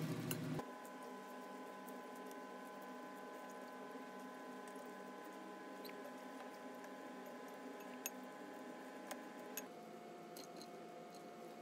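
Faint squeaky rustling and light taps of a fork tossing shredded raw cabbage with beaten egg in a glass bowl, over a steady faint hum. A couple of sharp clicks come near the end of the mixing.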